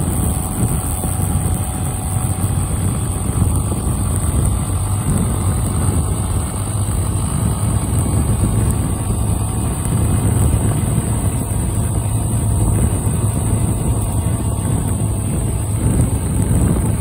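Motorcycle engine running at a steady cruise while riding, mixed with rushing wind noise.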